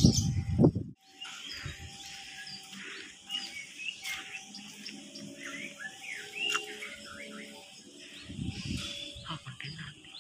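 A loud rumble cuts off sharply about a second in. Then many birds chirp over faint drawn-out tones.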